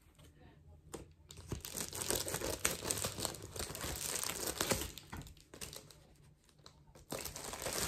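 Plastic bubble mailer crinkling and tearing as it is pulled open and handled, in two spells of rustling with a quieter pause about five seconds in.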